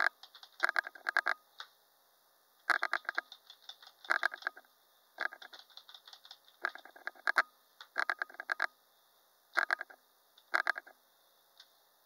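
Computer mouse scroll wheel clicking in quick runs of ticks, about ten short runs with brief pauses between, as a web page is scrolled.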